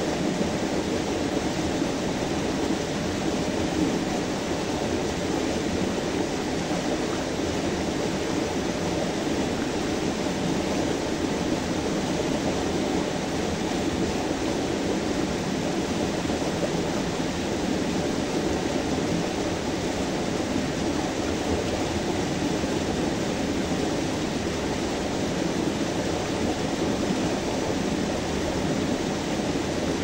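Small forest stream pouring over rocks in a short cascade into a pool: a steady, unbroken rush of water, fullest in the low-middle range.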